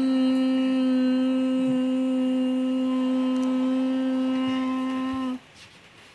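A person humming one steady, unwavering note into a cling-wrap drum stretched over a bowl, held for about five seconds and then stopping abruptly.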